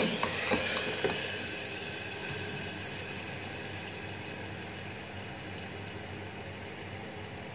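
Hot ghee tempering sizzling in khichdi inside a closed pressure cooker, with a couple of clicks near the start as the metal lid goes on. The sizzle dies down over the first two seconds to a faint steady hiss.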